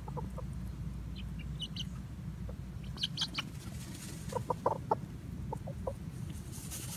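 Young chickens clucking in short, scattered calls, with a few higher chirps, and a quick run of clucks about two-thirds of the way through, over a steady low rumble.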